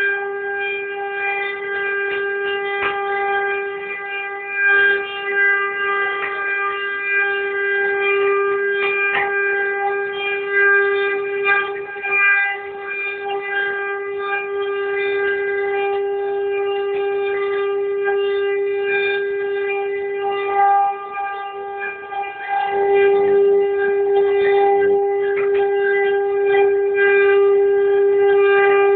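CNC router spindle carving wood: a steady whine with scattered cutting clicks, growing louder about three-quarters of the way through.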